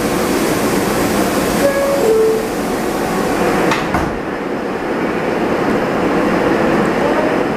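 R160 subway train running on the rails: a steady rumble and hiss of wheels and car, with one sharp clunk about four seconds in, after which the high hiss drops off.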